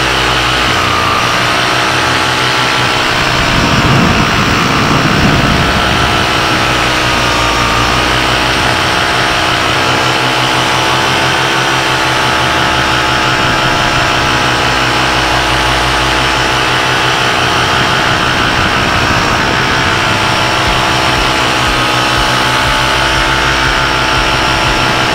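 Air Conception paramotor engine and propeller running at a steady cruise throttle in flight, with wind noise on the microphone. A brief louder rush comes about four to five seconds in.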